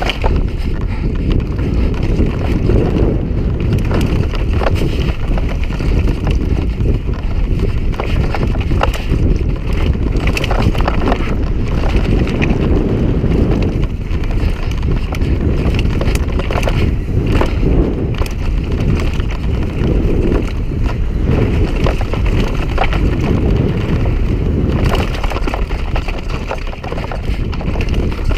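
Mountain bike descending a loose, rocky trail at speed: wind buffeting the action camera's microphone, with tyres crunching over stones and the bike rattling and knocking on the rough ground.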